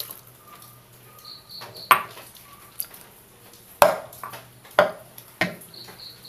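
Dishes and cookware being handled on a kitchen counter: about five sharp knocks and clinks with a brief ring, the loudest about two and four seconds in. Faint high chirping runs underneath.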